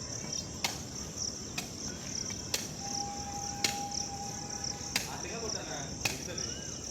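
Crickets chirping steadily in a high continuous drone, with sharp knocks about once a second. A steady mid-pitched tone sounds for about two seconds in the middle.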